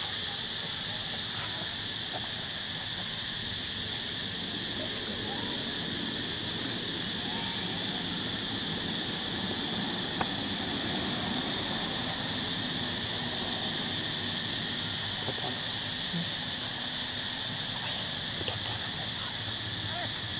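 Steady, high-pitched insect chorus, with a single sharp click about ten seconds in.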